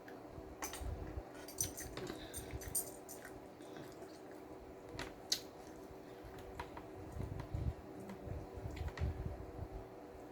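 Close-miked eating: crunching and chewing with scattered sharp clicks and crinkles, thickest in the first few seconds, and softer chewing later, over a faint steady hum.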